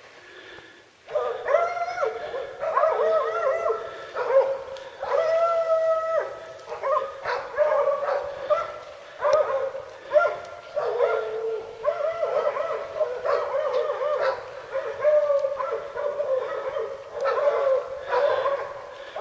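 Hunting dogs baying a hog: drawn-out, repeated calls one after another, starting about a second in, the sign of a hog held at bay.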